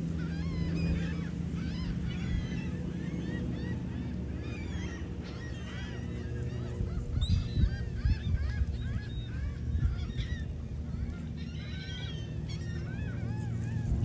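A flock of seagulls calling over one another, many short cries that rise and fall in pitch, over a steady low rumble.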